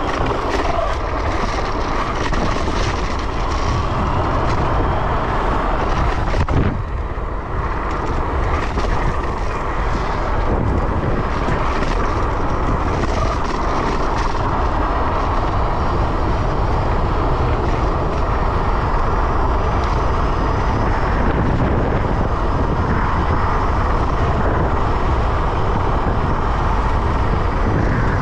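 Steady wind rush on the microphone, with tyre and motor noise from a Yugen RX11 dual-motor electric scooter riding along a road.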